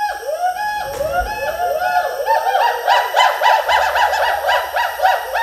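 Gibbon calling: a rapid, continuous series of whooping notes that each rise and fall in pitch, about four a second, growing louder toward the middle.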